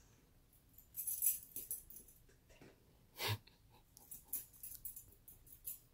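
A toddler's hands rummaging in a handbag: faint rustling and small clicks of things inside being handled, with one louder knock about three seconds in and a run of small ticks near the end.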